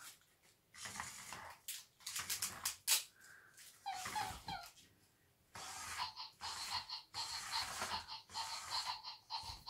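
Remote-controlled robot puppy toy making electronic sound effects: short synthetic barks and chirps in irregular bursts. In the second half comes a longer run of repeated electronic tones.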